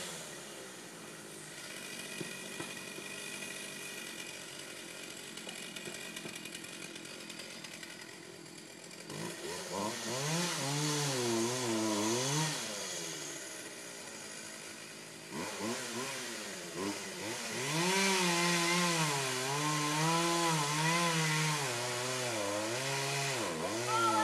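Chainsaw cutting into a large tree trunk: it runs low for the first several seconds, then revs up and down under load from about nine seconds in, with a brief dip around fifteen seconds before revving on.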